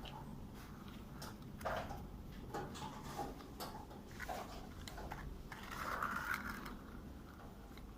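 A plastic toy truck's parts click and rattle as it is handled, in a run of irregular light clicks with a couple of longer rattling scrapes.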